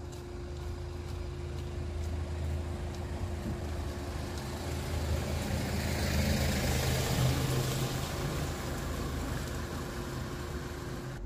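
A motor vehicle passing by: engine and road noise build up, peak about six to seven seconds in, then fade, over a steady low engine hum.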